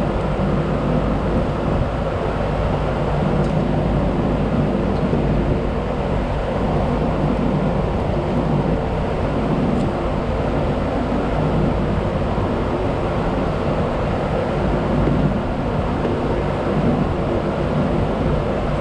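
Steady mechanical drone of running machinery: an even low hum with a rushing noise over it, holding level and unbroken throughout.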